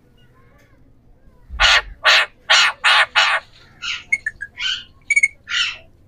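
Alexandrine parakeets screeching: a run of five loud, harsh calls about two a second starting a second and a half in, then a string of shorter squawks and chirps.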